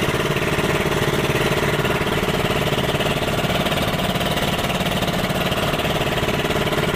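Engine of a small motorized outrigger boat (a lansa) running at a steady, even drone as the boat travels under way.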